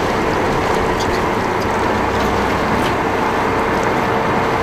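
Boat engine running steadily as the boat motors slowly forward, with a steady hum and the rush of water and wind around the hull.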